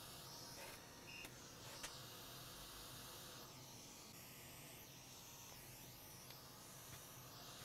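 Near silence: faint steady hiss, with a few faint ticks.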